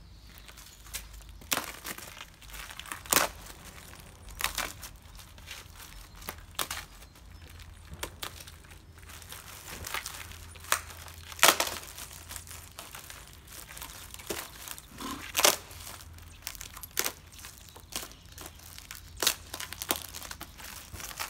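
Clear plastic stretch wrap and sticky tape being crinkled and torn off a wrapped package, in irregular crackles with a few sharper, louder rips.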